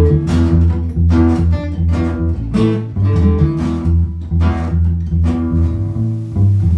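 Background music: strummed acoustic guitar with a steady bass line.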